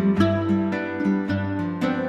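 Background instrumental music of plucked string notes, a few notes a second over a sustained chord.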